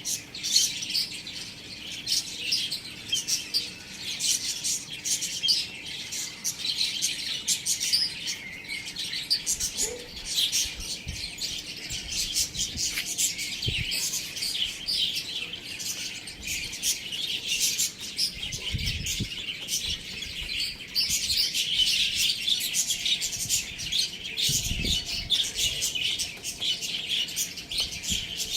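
Many small birds chirping and chattering at once in a continuous high twitter, with a few soft low thumps now and then.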